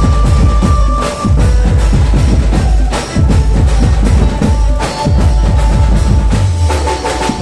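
Gaura-Gauri jas geet folk music in an instrumental stretch: fast, dense drumming with a few held melody notes over it.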